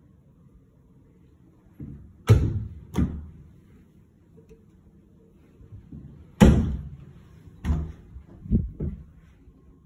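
Cupboard and room doors being opened and shut: a string of sharp knocks and thuds. The loudest comes about six and a half seconds in, after two about two and three seconds in, and a few softer knocks follow near the end.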